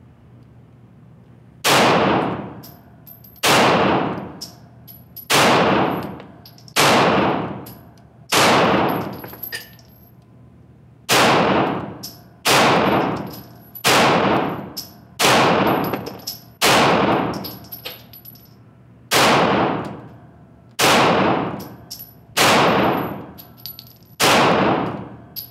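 Springfield XD Mod.2 4-inch pistol firing Federal Syntech polymer-coated range ammunition, slow aimed fire of about fifteen shots, one roughly every second and a half with a short pause near the middle. Each shot is a sharp crack with a fading echo off the indoor range walls.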